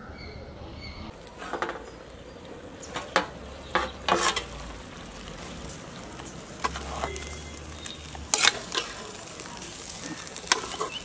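Perforated metal skimmer stirring chicken pieces cooking in their juices in a large aluminium pot. It scrapes and clinks against the pot several times over a steady sizzle.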